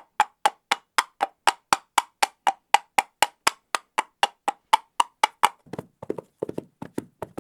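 A steady run of sharp, hollow knocks, about four a second, with silence between them. About two-thirds of the way in the knocks turn lower-pitched and less regular.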